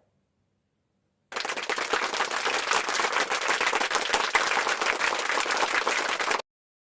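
An applause sound effect: many hands clapping for about five seconds, starting and cutting off abruptly.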